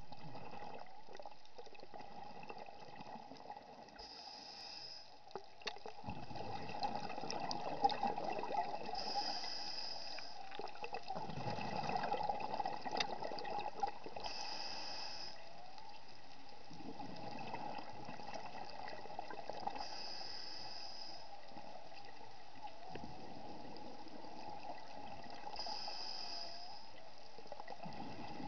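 Scuba diver breathing underwater through a regulator: a short hiss on each inhale, then a longer rush of exhaled bubbles, repeating about every five to six seconds.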